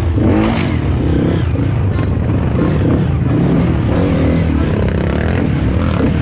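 Dirt bike engine running at low revs, its pitch wavering up and down with small throttle changes, as the bike creeps over rocks.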